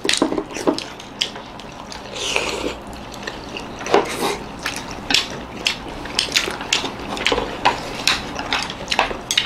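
Wooden chopsticks clicking and tapping against ceramic plates and porcelain sauce bowls as people pick up and dip momos, with scattered eating and slurping sounds.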